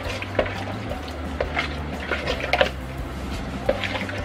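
A spoon stirring a soy sauce marinade in a plastic bowl to mix in cornstarch, with irregular light clicks and taps of the spoon against the bowl.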